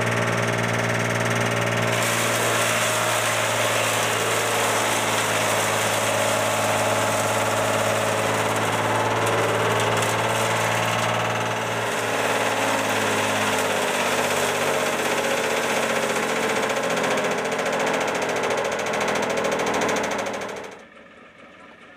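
Tractor-powered wood and cotton-stalk cutting machine running, a steady engine hum under a loud rough grinding noise as branches are shredded. The noise stops abruptly near the end, leaving a much quieter low hum.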